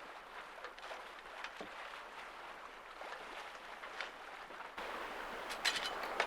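Steady rushing noise of water and wind aboard a small sailing yacht under way, with a few faint knocks. It gets abruptly louder about five seconds in.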